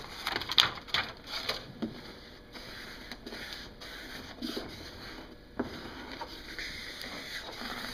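Squeegee swiped across a vinyl graphic in overlapping strokes from the center out: a series of short, uneven scraping swipes.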